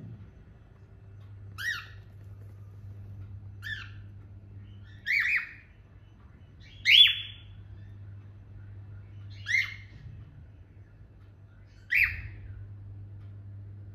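Cockatiels giving six short, sharp calls about two seconds apart, the loudest about halfway through, over a steady low hum.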